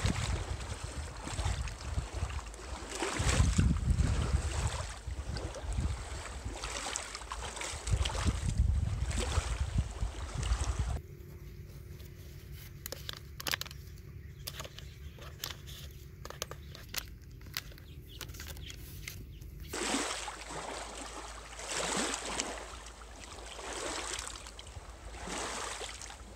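Shallow river water running and trickling over stones, with gusts of wind buffeting the microphone. In the middle the water and wind drop away for several seconds, leaving soft clicks and rustles of hands handling a syringe and plastic sterile packaging.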